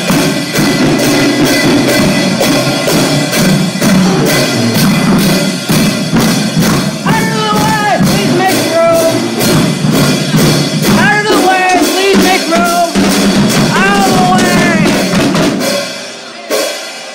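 Marching band playing loudly: bass drum and other drums beating a steady rhythm under brass, with a sousaphone among them. The band fades away about a second before the end.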